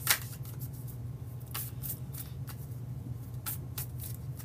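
A tarot deck being shuffled by hand, cards slipping and slapping against each other in irregular short snaps, the sharpest right at the start. A steady low hum runs underneath.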